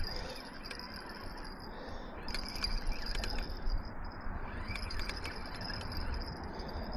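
Spinning reel being cranked to bring in a hooked fish, with faint metallic clicking and rattling in two spells, over a steady low rush of wind on the microphone.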